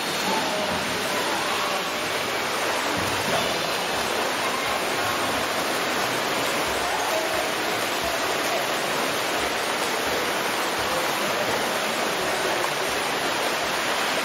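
Swimmers splashing as they race down the lanes of an indoor pool: a steady wash of churning water.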